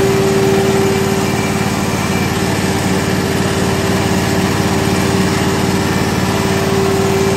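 Milking machine's 1 HP vacuum pump unit running steadily with a constant hum, drawing vacuum for the teat cups.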